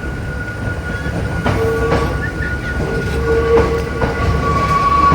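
Hakone Tozan Railway Moha 2 cardan-drive electric railcar running, heard from inside the car. There is a low rumble from the running gear, a few sharp rail clacks, and steady high-pitched tones that grow stronger about halfway through.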